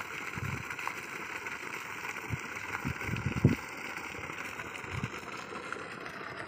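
Water from a solar borewell pump gushing out of a hose and splashing onto dirt, a steady hiss that shows the pump is delivering a full flow. A few low thumps break in, the loudest about three and a half seconds in.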